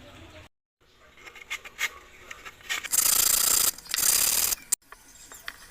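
Sandpaper rubbed by hand over a small wooden piece: two loud scraping strokes in the middle, with light clicks and handling noise of the wood around them.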